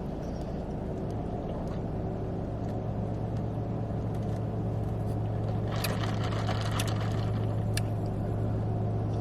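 Steady low hum throughout, with a few light clicks and a brief rustle about six seconds in.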